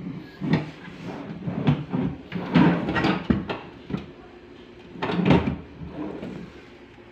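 Plywood drawers being pulled open and pushed shut several times, the wood scraping as they slide, with sharp knocks as they bump home.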